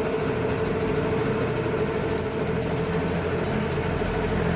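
A steady mechanical hum from a running engine or motor, even throughout, with a constant mid-pitched tone over a lower drone.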